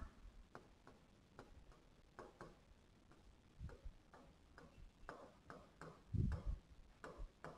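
Pen tip tapping and scratching on a writing-board surface as words are handwritten: faint, irregular light clicks, with a couple of soft low thumps about three-quarters of the way through.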